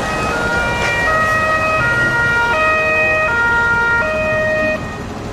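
Electronic two-tone siren of a toy emergency vehicle, alternating between a high and a low note about every three-quarters of a second, then cutting off abruptly near the end.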